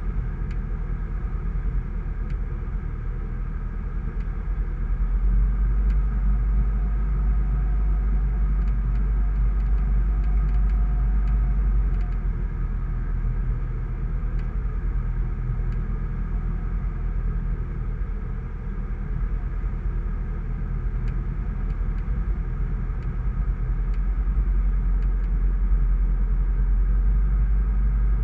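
Cockpit noise of a Sling 2 light aircraft in flight: the steady drone of its Rotax 912 four-cylinder engine and propeller, with rushing air. The drone gets louder about five seconds in, eases back around twelve seconds, and grows louder again near the end.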